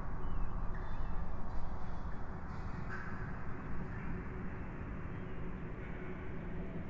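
A few bird calls, caw-like, over a low, steady rumble.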